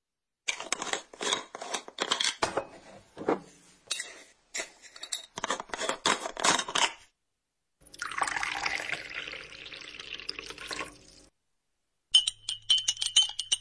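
Dishes, glasses and cutlery clattering and clinking in quick, irregular knocks for several seconds. Then water runs, like a tap pouring, for about three seconds. Near the end a fast, even ticking with a high steady tone begins.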